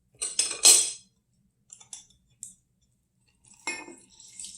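Small handheld lemon squeezer clicking and clinking as a lemon half is pressed. There is a quick cluster of sharp clinks at the start, a few faint ticks in the middle, and another click near the end.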